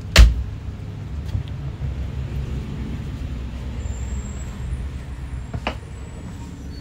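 A fibreglass access door on the boat's console pushed shut by hand, a single sharp knock just after the start. A steady low rumble underneath, and a lighter click about five and a half seconds in.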